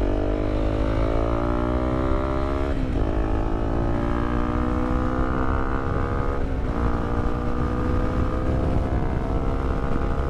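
Honda CRF250L's single-cylinder engine accelerating through the gears. The pitch climbs steadily and drops sharply at two upshifts, about three and six and a half seconds in. Wind rumbles on the microphone underneath.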